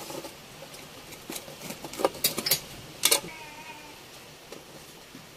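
Knife and freshly cut pieces of harcha knocking against a glass plate and a metal serving tray: a few sharp clicks about two and three seconds in, over faint kitchen noise.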